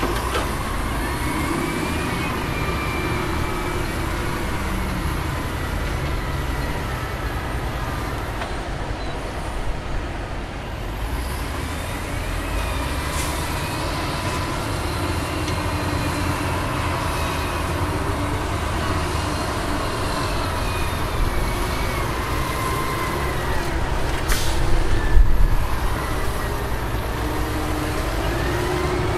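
Heavy diesel earthmoving machinery running, such as a wheel loader or dump trucks: a steady engine drone whose pitch rises and falls as the engines rev under load. A short sharp sound cuts in about three-quarters of the way through.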